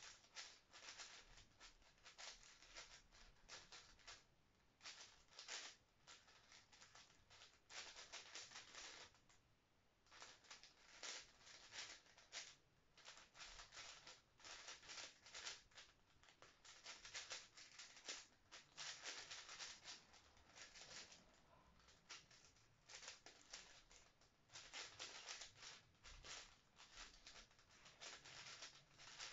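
5x5 speedcube being turned fast by hand: rapid runs of plastic clicking and clacking as its layers snap past each other, in bursts with short pauses, one longer pause about nine seconds in.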